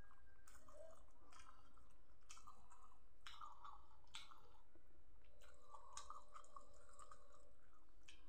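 A man chewing a mouthful of rice and side dishes eaten by hand, with short sharp mouth clicks and smacks about once a second.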